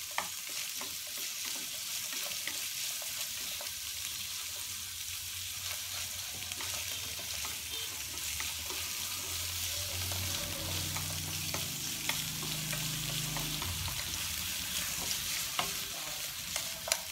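Pieces of pigeon meat sizzling in hot oil in a frying pan as they are stirred with wooden chopsticks, searing until the meat firms up. Scattered light clicks come from the chopsticks against the pan. A low hum joins in about halfway and stops a few seconds later.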